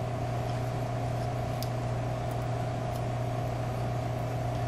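Steady background hum, a low drone with a higher steady tone above it, and a few faint light ticks.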